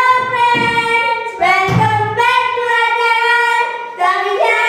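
Children singing in long held notes, the pitch changing about a second and a half in and again near the end.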